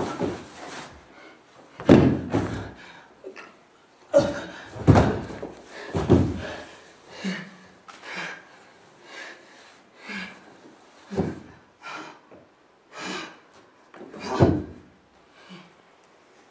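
A performer's body thudding and sliding on a wooden stage floor, in irregular heavy thuds that are loudest about two seconds in, around five to six seconds and again near the end. Short huffs of breath come between the thuds.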